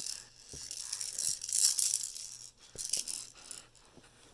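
A rattling, shaken sound in several bursts, loudest a little under two seconds in, with a few soft knocks.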